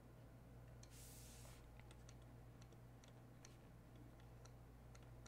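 Faint light clicks and taps of a stylus on a drawing tablet as a word is handwritten, coming several a second from about two seconds in, over a low steady electrical hum.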